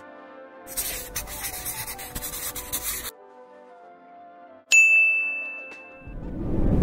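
Edited sound effects over soft background music: a dense scratchy rustling noise for about two and a half seconds, then a single bright bell ding that rings out for about a second, then a low swell building near the end.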